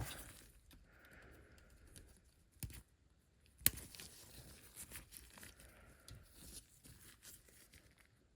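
Faint rustling and handling of a plastic model kit's parts and sprue, with a few small ticks and one sharp click a little over three and a half seconds in.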